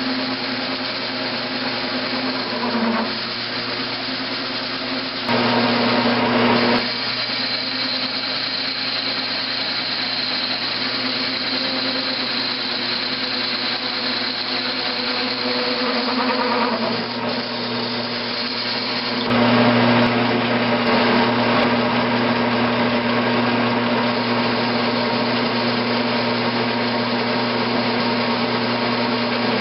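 Grizzly G9972Z bench metal lathe running, its motor and gearing giving a steady hum and whine while the tool takes a turning cut on a cast iron workpiece. The sound gets louder for a moment about five seconds in, and again from about nineteen seconds on.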